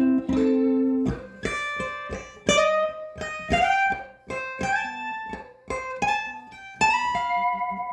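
Electric guitar fitted with Seymour Duncan Zephyr humbucker pickups, playing a run of single picked notes one after another, ending on a held note that rings out and fades.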